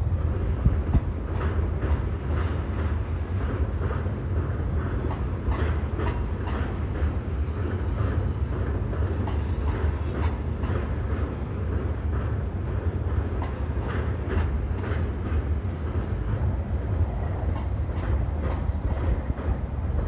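Freight train of oil tank cars rolling steadily across a steel truss bridge: a continuous low rumble with many irregular clicks and clacks of wheels over rail joints.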